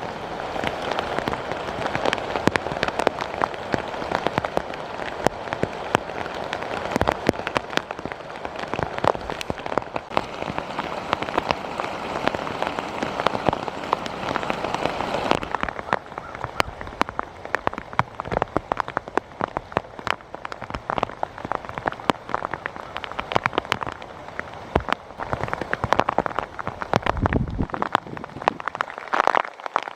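Steady rain falling, a dense hiss full of separate drop hits. The hiss thins out about halfway through.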